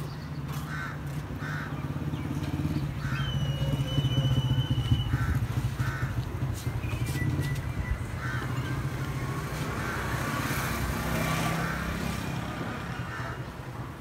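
An engine running, swelling louder about four seconds in and again later, with crows cawing several times over it.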